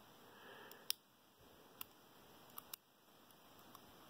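Near silence with four faint, sharp clicks of small metal parts as a top pin is worked out of a Schlage Primus lock cylinder.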